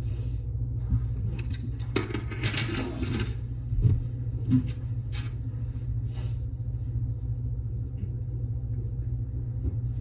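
Metal lock and tools being handled: scattered small metallic clicks, with a short rattle about two seconds in, over a steady low hum.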